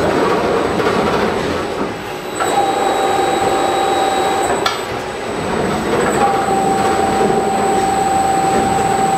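Farbal FM5D automatic film-wrapping machine running, its belt conveyor and wrapping head giving a steady mechanical hum. A steady whine comes in about two and a half seconds in, stops with a sharp click just before five seconds, and returns about six seconds in.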